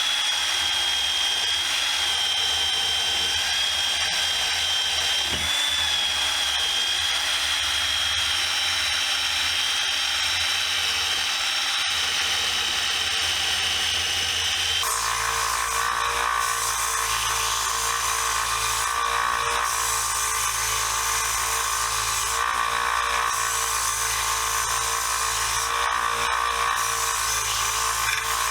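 Motor-driven wire wheel running against the steel parts of a pipe wrench, scrubbing off rust and pitting. A steady high whine changes abruptly about halfway through to a lower, pulsing tone.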